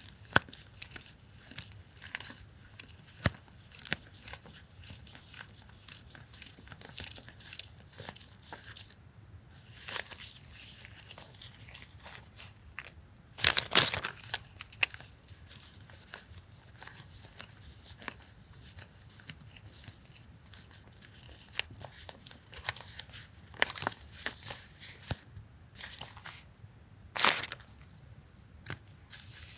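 Paper stationery and its packaging being handled, rustling and crinkling in short, irregular bursts, with two louder crinkles about halfway through and near the end.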